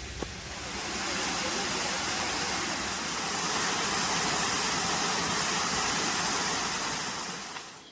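Wind rustling through bamboo leaves, a steady bright hiss that swells about a second in and fades near the end.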